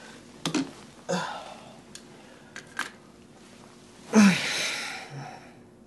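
A person settling down in bed: bedding rustling and a few short soft knocks as he shifts and turns over, with a louder breathy rustle about four seconds in that fades away over a second.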